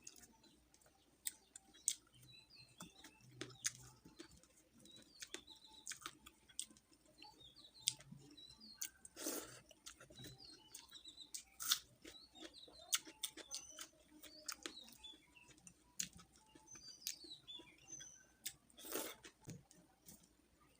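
Quiet eating sounds, chewing with irregular sharp clicks and smacks, while small birds chirp repeatedly in the background.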